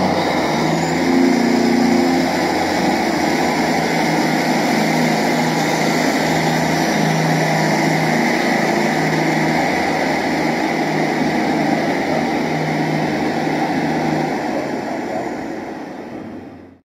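Model class 150 diesel unit pulling away from the platform, with a steady engine-like drone that fades as it leaves and cuts off just before the end.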